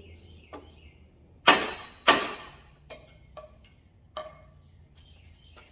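Two hard strikes of a tomahawk on a block of wood, hammering a new mountain bike headset into place, followed by a few lighter knocks.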